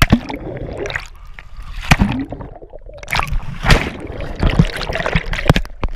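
A body-worn camera plunges into a pool with a sharp splash at the start. It then picks up muffled underwater churning and bubbling, broken by several sharp knocks.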